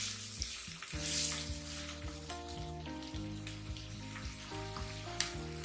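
Chopped onions sizzling in hot oil in a nonstick wok, stirred now and then with a wooden spatula, as they fry toward translucent. Soft background music plays under the sizzle.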